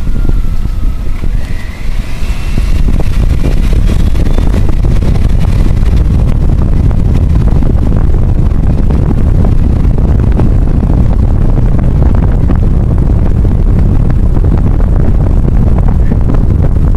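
Car driving along a road, heard from inside: a loud, steady low rumble of road and wind noise that gets louder about three seconds in and then holds.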